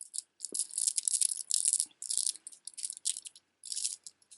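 Strands of beaded jewelry clattering and rattling as they are handled, bead knocking on bead in several quick bursts.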